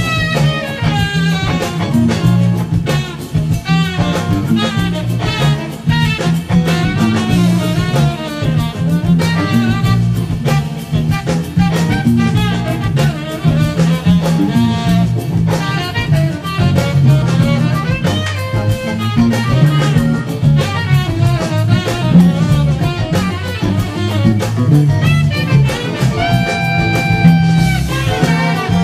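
Funk-jazz playing: a busy electric bass line under a saxophone-led band with drums and guitar, the saxophone weaving bending phrases. Near the end the horns hold one long note.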